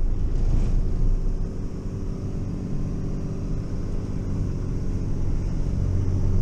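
Dodge Ram 5500 wrecker's engine running steadily under load while towing a heavy motorhome van.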